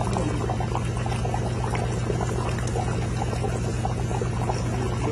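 Chicken curry bubbling in a kadai: many small irregular pops over a steady low hum.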